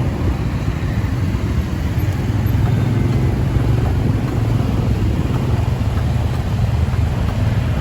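Moving motorcycle taxi: its engine running and road noise in a steady low rumble.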